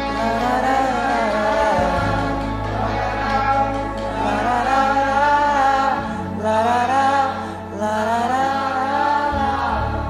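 Live acoustic worship song: male voices singing long, gliding melody lines over acoustic guitars and keyboard, with sustained low bass notes that shift a few times.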